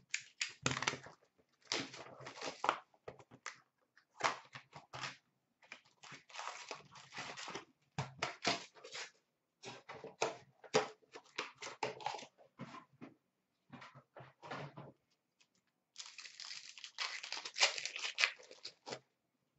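Hockey card box packaging and foil card packs being torn open and crinkled by hand, in a run of short rasping bursts, with a longer stretch of crinkling near the end.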